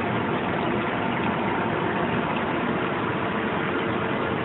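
Höfler Rapid 1250 gear grinder finish-grinding a helical gear shaft, running steadily with coolant spraying over the teeth: an even, unbroken machine noise with faint steady tones in it.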